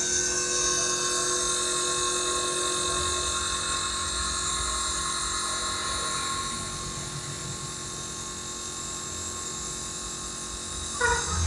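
Nebulizer air compressor running steadily: a constant motor hum with a high hiss, used here to nebulize medicine for a lingering cough. A brief voice is heard near the end.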